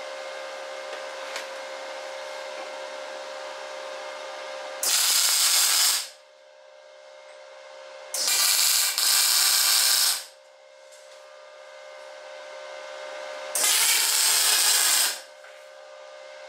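Electric welding arc striking three times on a pitbike frame tube, each burst a loud hissing crackle lasting one to two seconds: tack welds holding the tube in place. Under it runs the steady whine of the welder's powered respirator blower.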